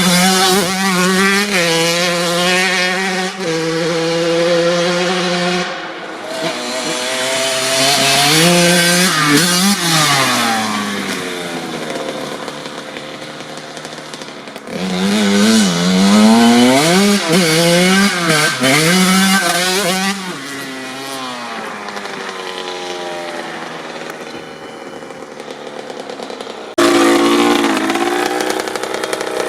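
1997 Kawasaki KX80's 80cc single-cylinder two-stroke engine revving hard at wide-open throttle, its pitch climbing and dropping again and again through gear changes and throttle blips. It fades into quieter stretches as the bike rides off, then jumps back loud suddenly about halfway through and again near the end.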